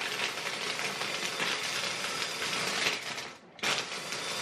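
Ninja mini chopper's motor running with its blades crushing a trayful of ice cubes in coffee, the ice clattering against the jar. It stops for a moment about three and a half seconds in, then starts again.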